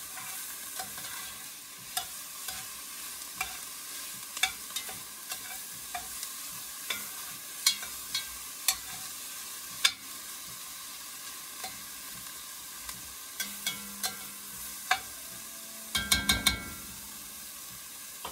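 Onions and celery sautéing in butter in an enameled Dutch oven over medium-high heat: a steady sizzle, with a metal spoon scraping and clicking against the pot as they are stirred. A quick run of knocks comes near the end.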